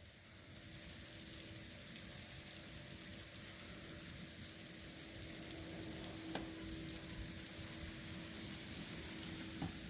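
Freezing rain falling as a steady, even hiss, with a steady low hum on one pitch running underneath it.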